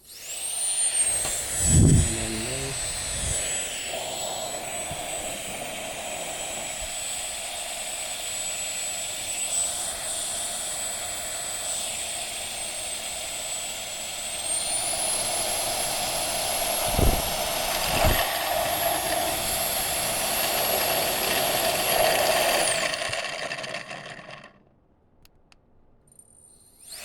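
High-speed electric jet fan blowing air through a 3D-printed turbine model and spinning its blades: a loud steady whine with a high tone that steps up in pitch about halfway through. A few knocks are heard near the start and again twice later; the whine then winds down and cuts off, starting up again at the very end.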